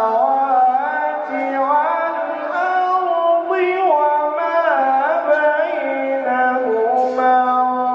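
A man reciting the Quran in the melodic tilawat style: one voice holding long notes that slide and turn between pitches.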